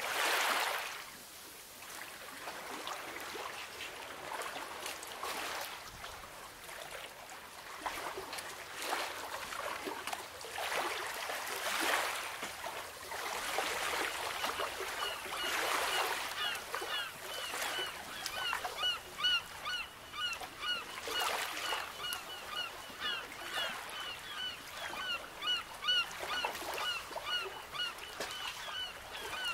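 Small sea waves washing against the shore, coming and going every few seconds. From about halfway a bird calls over and over in short, repeated notes, about two a second.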